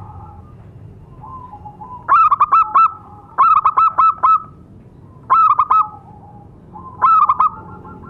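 Zebra dove (perkutut) cooing: four bursts of quick, stuttering coo notes, a couple of seconds apart, with fainter, lower coos between them.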